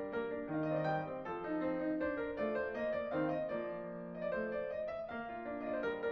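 Background piano music: a steady flow of melody notes over held chords.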